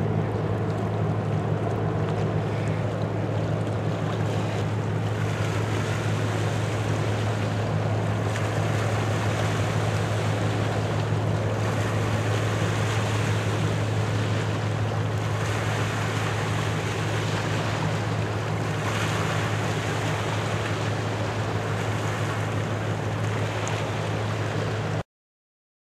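A steady low engine drone from the passing container ship and its escorting tugboats carries across the harbour water, with wind noise on the microphone over it. The sound cuts off suddenly near the end.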